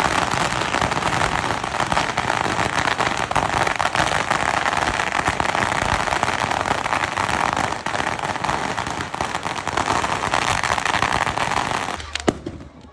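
Fireworks crackling densely and without a break, a rapid run of countless small pops. The crackle dies away near the end, followed by a single sharp bang.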